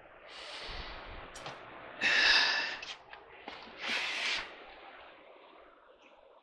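A few breathy exhales or sighs close to the microphone, the loudest about two seconds in and another about four seconds in.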